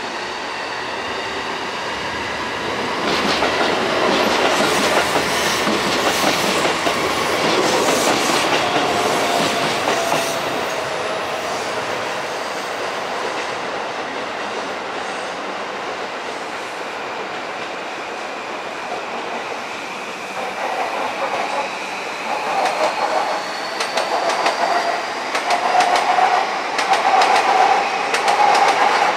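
Electric trains passing through a busy station: wheels clicking over rail joints, with a whine that glides up and down in pitch. One train swells loudest a few seconds in, and near the end a second brings quick rhythmic clacking.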